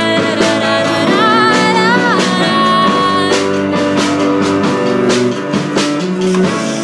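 A pop-rock song with a woman singing over guitar and drums. About a second in she holds a wavering note, and steady drum hits run underneath.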